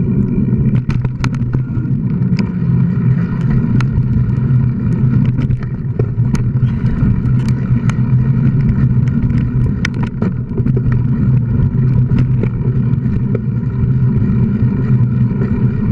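Mountain bike riding noise picked up by an action camera on the bike or rider: a loud, steady low hum of tyres and wind with many sharp, irregular clicks and rattles as the bike runs over the dirt trail.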